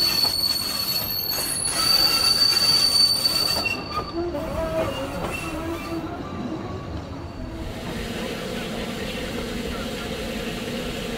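Narrow-gauge railway carriages rolling slowly round a curve, their wheel flanges squealing on the rails in a steady high-pitched squeal that dies away about six seconds in. About seven seconds in it gives way to a steady low hum from a Double Fairlie steam locomotive standing at a platform.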